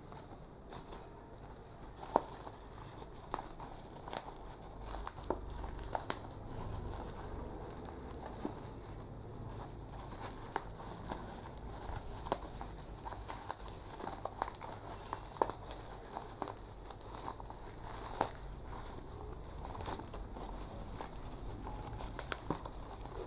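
Plastic packaging crinkling and rustling as hands unwrap it: a thin black plastic wrapping and a clear moulded plastic tray, with frequent small crackles and clicks.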